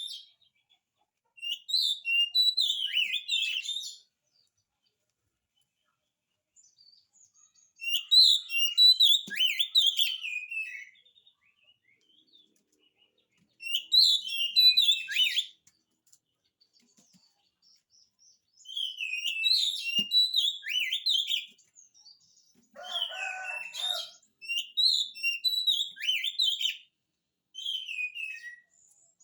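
Oriental magpie-robin (kacer) singing in bursts of rapid, varied whistled phrases, each a few seconds long with short pauses between them. About three quarters of the way through comes one lower, harsher burst.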